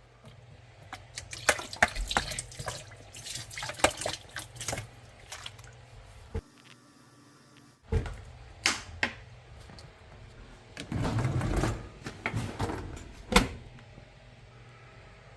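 Irregular clicks, knocks and clattering of dishwasher parts being handled during a drain-fault repair, with a short rushing, water-like noise about eleven seconds in.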